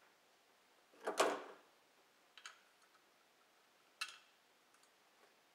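Compression tester gauge and hose being handled and coupled together: a short scraping rustle about a second in, then a few sharp clicks, the loudest about four seconds in.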